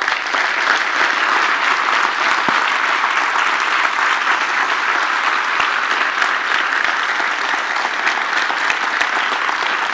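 Audience applauding: many people clapping, breaking out suddenly and keeping up steadily.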